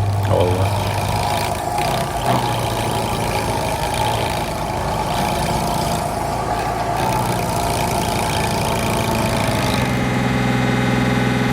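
Heavy machinery engine running steadily under dense mechanical noise. About ten seconds in, a smoother, steadier engine hum with a clear pitch takes over.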